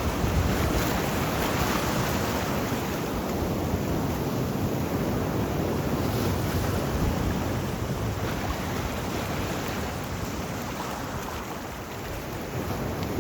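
Sea waves washing and breaking in a steady rush that swells and eases slowly, with wind rumbling on the microphone.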